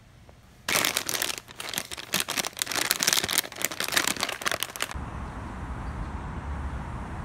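Package wrapping rustling and crinkling in a dense run of crackles for about four seconds as a delivered parcel is handled and opened. It gives way to a steady low outdoor rumble.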